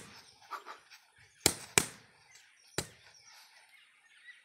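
Boxing gloves smacking focus mitts during pad work: one hit at the start, a quick pair about a second and a half in, and one more a second later.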